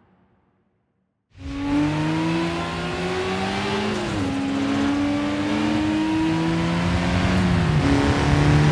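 Near silence for about a second, then two racing car engines cut in loud and at high revs: a Nissan Skyline GT-R R32 and a Mitsubishi Lancer Evolution IV driven hard together. Their notes climb slowly and drop at upshifts about four and eight seconds in.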